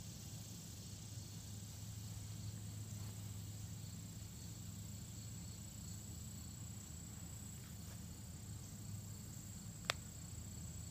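Faint steady background hum, then near the end a single sharp click: a barred owl snapping its bill, a defensive threat over its rabbit kill.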